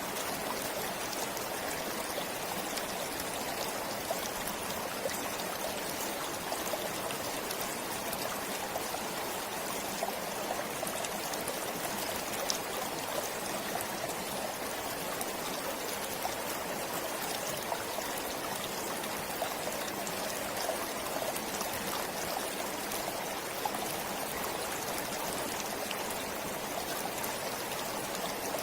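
A stream flowing steadily: an even rush of water with many small trickles and splashes through it.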